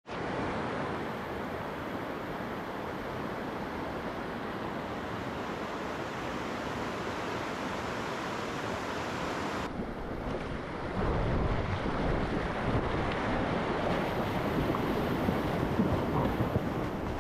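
Steady rush of flowing stream water. In the second half, low gusts of wind buffet the microphone.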